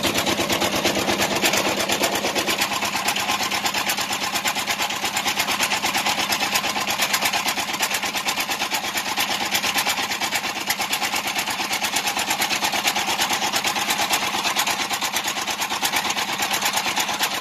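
Small single-cylinder diesel engine running steadily at a fast, even chug.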